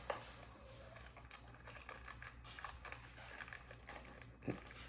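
A packet of butter cookies being handled and opened: a string of light clicks, taps and crinkles, with a sharper knock near the start and another about half a second before the end.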